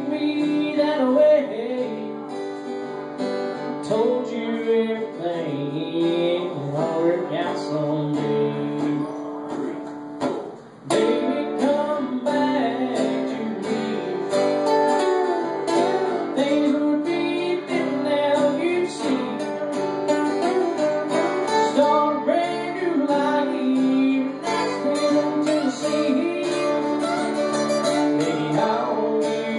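Two acoustic guitars strummed live with a man singing into a microphone. The playing breaks off briefly about ten seconds in, then picks up again.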